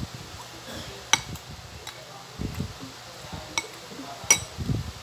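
Metal spoon clinking against a ceramic cereal bowl: three sharp, ringing clinks, one about a second in and two near the end, the last the loudest. Low, dull chewing sounds come between them.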